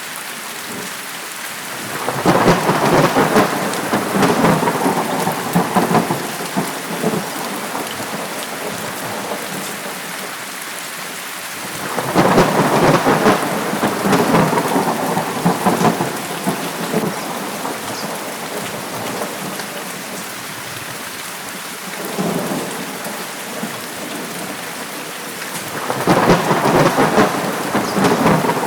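Steady heavy rain hissing, with rolling thunder swelling up four times, each roll lasting a few seconds; the third is weaker than the others.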